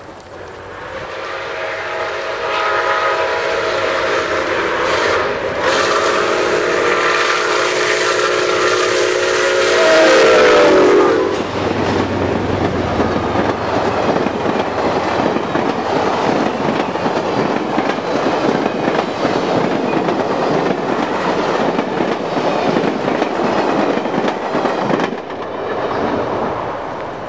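Milwaukee Road 261, a 4-8-4 steam locomotive, approaching with its whistle sounding a chord of several notes in long blasts, the chord dropping in pitch as the engine passes about eleven seconds in. Then its passenger cars roll by with a steady clatter of wheels on rails, which falls away near the end.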